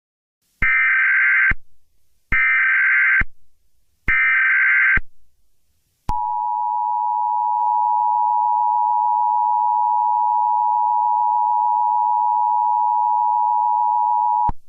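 Emergency Alert System SAME header: three short bursts of screechy modem-like data, about a second apart. Then the EAS two-tone attention signal holds steady for about eight seconds and cuts off just before the end. This is the sequence that opens an emergency alert broadcast.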